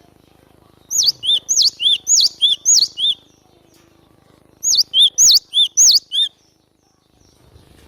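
Cinereous tit (glatik batu) singing: two loud bursts of a quickly repeated two-note phrase, a high note sweeping down followed by a lower one.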